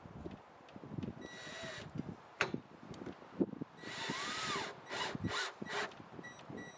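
Cordless drill driving screws to fasten a trim piece back on, in short runs of motor whine about a second and a half in, about four seconds in and again near the end, with small knocks from handling between.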